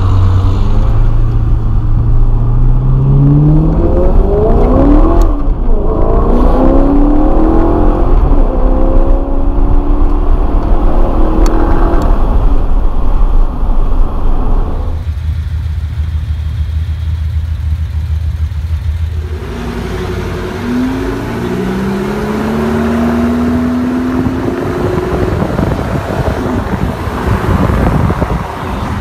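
Maserati GranTurismo's V8 heard from inside the cabin, accelerating hard with the pitch climbing and dropping back at several gear changes, then settling into a steady low drone for a few seconds. About 20 s in the revving resumes with another rising pull.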